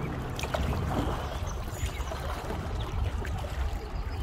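Kayaks landing at a riverbank: water splashing and trickling around the hulls, with scattered small knocks, over a steady low rumble on the microphone.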